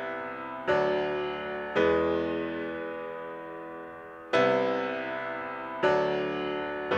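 Background music: slow piano chords, each struck and left to ring and fade, with new chords about one, two, four and a half and six seconds in.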